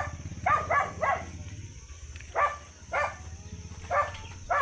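A dog barking, about eight short barks in irregular groups of one to three, over a steady low hum.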